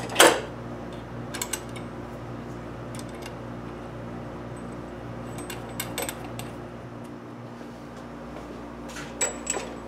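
Small metal parts clinking and tapping against a lathe's spindle and headstock as they are handled: a sharp knock right at the start, then scattered single clicks, a few with a brief high metallic ring near the end, over a steady low hum.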